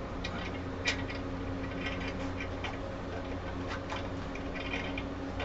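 Small scattered metallic clicks and taps as a Harley Dyna's front wheel is rocked back and forth to work the axle through the wheel spacer and fork, with one sharper click about a second in. A steady low hum runs underneath.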